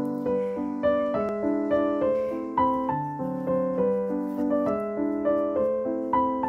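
Background piano music: a gentle melody of notes struck at an even pace over held lower notes.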